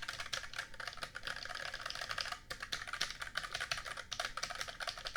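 Rapid typing on a Tesoro GRAM Spectrum mechanical keyboard with low-actuation Kailh red linear switches: a fast, dense patter of keystroke clacks, with a brief pause about two and a half seconds in.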